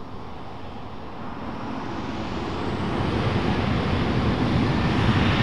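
Jet engines of a Boeing 737-800, CFM56 turbofans, at takeoff thrust during the takeoff roll. The steady rushing noise grows louder from about a second in as the airliner accelerates down the runway.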